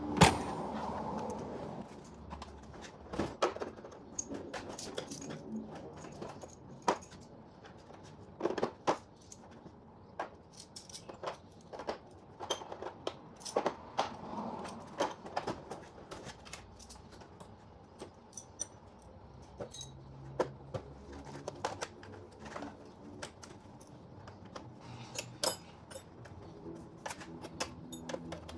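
Metal hand tools (screwdrivers, sockets, wrenches) clinking and clattering as they are picked up, sorted and set down, in irregular sharp taps and clanks.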